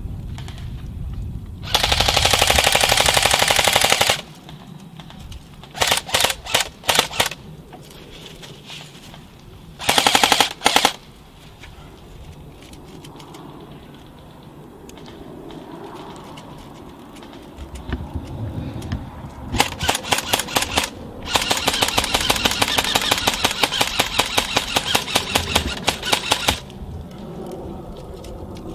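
Airsoft electric rifles (AEGs) firing in rapid bursts: a long full-auto burst about two seconds in, shorter bursts around six and ten seconds, then several quick strings and a long burst of about five seconds near the end.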